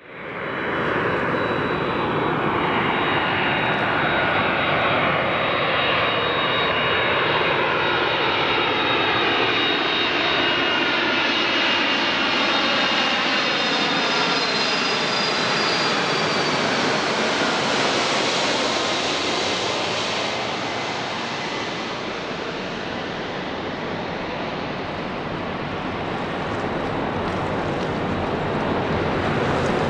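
Boeing 767-300ER airliner on landing approach passing overhead, its twin jet engines giving a steady jet noise with a high whine that slides down in pitch as it goes by. The sound eases slightly after about twenty seconds as the plane moves away.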